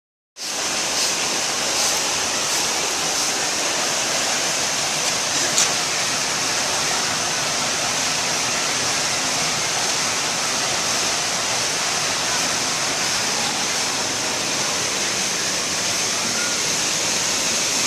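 Steady rushing noise like running water, with a few faint clicks in the first few seconds.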